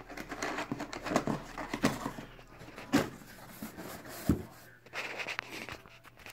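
Cardboard shotgun box being opened by hand: its locking tab pulled free and the lid lifted, with rustling and scraping of cardboard and a few sharper knocks, the loudest about three and four seconds in.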